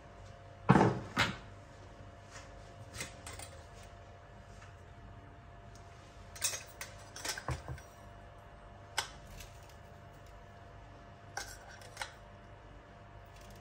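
Kitchen utensils being handled: scattered knocks and light metallic clinks from a stainless steel spice box and spoon as spices are taken out, with two louder knocks about a second in and a cluster of clinks around the middle.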